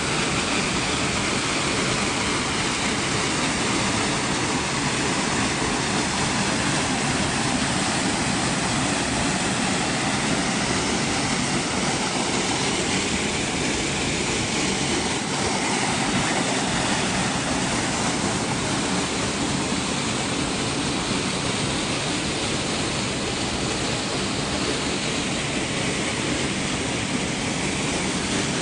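Steady roar of a waterfall, an even rushing noise of falling water at an unchanging level.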